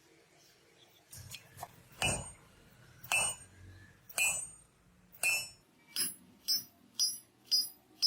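Hammer striking hot steel on an anvil in forging, each blow ringing with a bright metallic tone. The blows come about once a second, then speed up to about two a second near the end.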